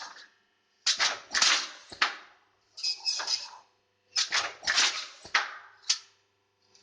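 Blind-making semi-automatic machine working in repeated cycles: each cycle opens with sharp clicks and is followed by about a second of hissing and clatter. There are four such cycles, with brief silences between them.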